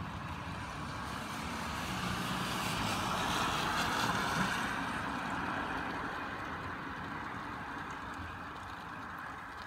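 A car drives past on a rain-soaked street, its tyre hiss on the wet road swelling to a peak about four seconds in and then fading, over the steady hiss of rain.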